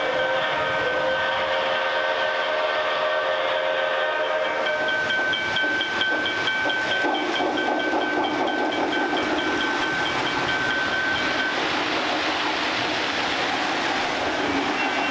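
Lionel O-gauge model trains running on three-rail track, a steady rumble of wheels and electric motors. A model train whistle sounds steadily for about seven seconds from about four seconds in. The rumble grows fuller as a train passes close by.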